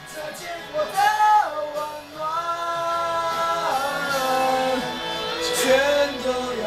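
A solo voice singing a Chinese pop ballad over backing music, holding long notes that slide from one pitch to the next.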